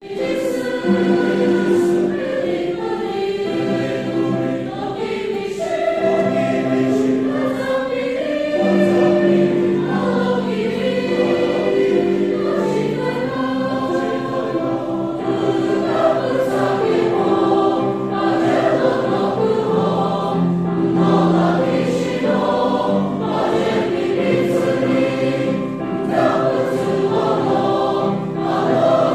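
Male choir singing a hymn in harmony, moving slowly from one held note to the next.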